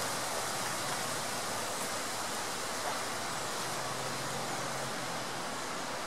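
The river Soča flowing: a steady, even rush of water.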